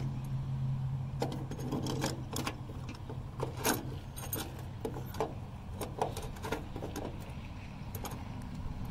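Chrome SS gas cap being twisted and seated on a 1967 Camaro's fuel filler: a run of irregular light metallic clicks and scrapes, over a steady low hum.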